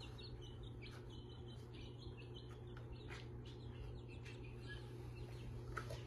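Baby chicks peeping: many faint, short, high-pitched cheeps scattered throughout, over a steady low hum.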